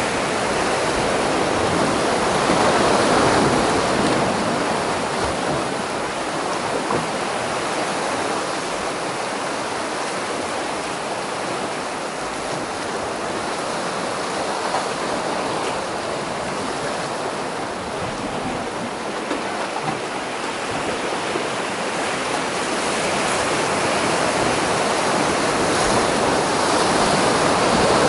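Sea surf washing over and around coastal rocks: a steady rush of broken water that swells a few seconds in, eases through the middle and builds again near the end.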